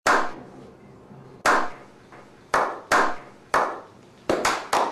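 A slow clap by a small group: single hand claps with a short echo, more than a second apart at first, then coming closer together and speeding up near the end.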